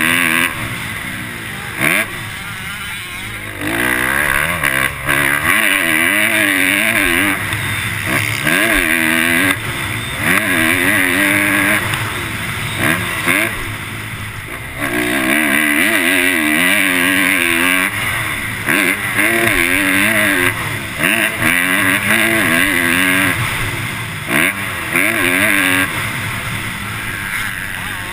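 Motocross bike engine revving hard and falling back again and again as the throttle is opened and closed through the gears, with heavy wind rush on the helmet-mounted microphone. The engine drops off twice, a few seconds in and about halfway through, where the throttle is rolled off.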